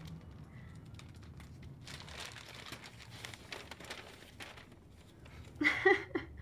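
Soft rustling and small knocks of a wooden picture frame being handled, over a low steady room hum. Near the end comes a brief burst of a person's voice.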